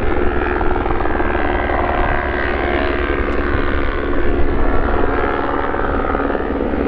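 Airbus Helicopters H125 running close by: a steady, fast rotor chop with a steady turbine whine over it.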